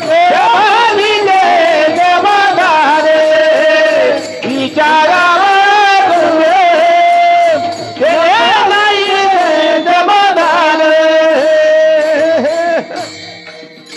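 Devotional abhang singing: a voice holding long, wavering, drawn-out notes without words over instrumental accompaniment. Near the end the voice stops and the accompaniment carries on more quietly with regular sharp strikes.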